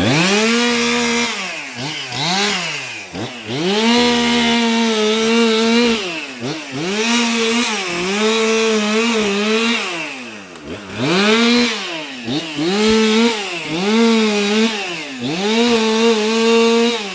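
Gas-powered two-stroke chainsaw repeatedly throttled up to full speed and let back down, about ten times, while cutting branches. The pitch sags a little under load during several of the held revs.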